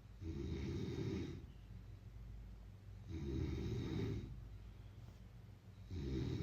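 A person snoring in a slow, even rhythm: three rasping snores, each about a second long, about three seconds apart.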